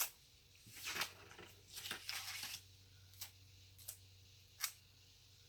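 A sticker being lifted and peeled off paper, with soft ripping and paper rustling in two stretches, then three light sharp ticks near the end.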